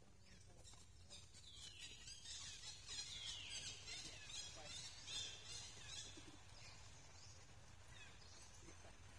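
Faint, high-pitched animal calls: a quick, dense run of chirps that fall in pitch, thickest in the middle few seconds, over a low background rumble.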